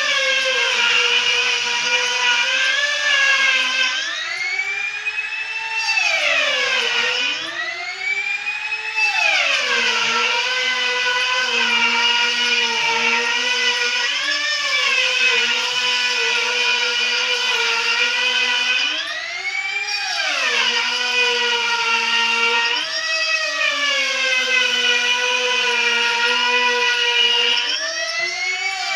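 A high-speed electric power tool motor running hard while cutting wood. Its whine sags in pitch under load and rises several times as the cut eases off, then drops back as it bites again.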